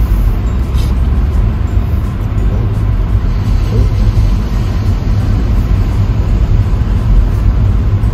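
A car driving slowly on a paved road: a steady low rumble of engine and tyre noise.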